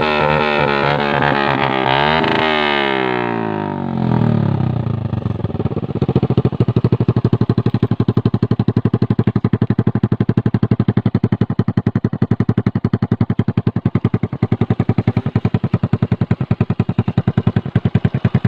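Suzuki Smash 115's single-cylinder four-stroke engine through a home-made conical exhaust pipe of welded galvanized sheet: held at high revs at first, the revs fall away between about two and four seconds in, and it then settles into a steady idle with an even, pulsing exhaust beat.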